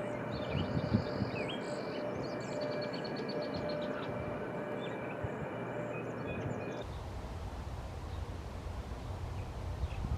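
Strong wind buffeting the microphone as a steady rough rumble, with small birds chirping and trilling faintly behind it. About seven seconds in the chirps drop out and only a heavier low wind rumble remains.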